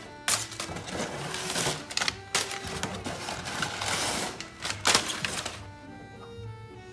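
Crumpled brown craft paper crackling and rustling as it is heaped onto an open notebook, over background music. The paper noise stops about five and a half seconds in, leaving only the music.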